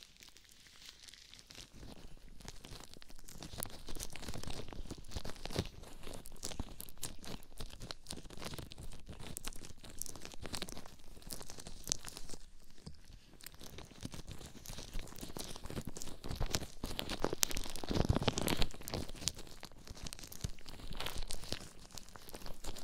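Rubber gloves rubbing against the silicone ears of a binaural microphone, heard very close: a dense crackling, squeaky friction. It starts quiet and builds over the first couple of seconds, with a louder stretch about three-quarters of the way through.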